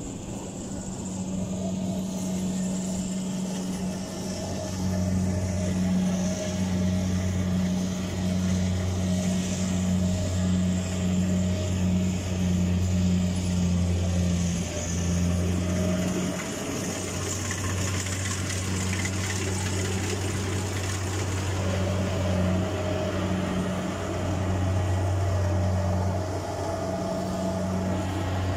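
Rice combine harvester running as it reaps, its engine giving a low, steady drone.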